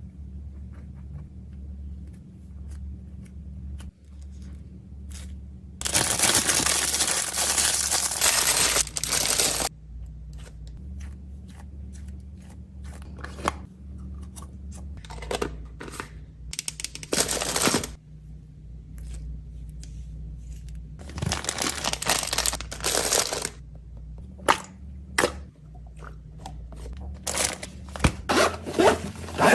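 Plastic packaging being handled: crinkling and tearing with many small clicks and taps, and two long loud rustling tears, one about six seconds in and one near twenty-two seconds. A steady low hum lies underneath.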